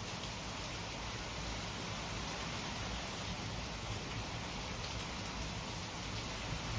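Steady rainfall, an even hiss of rain falling on surfaces.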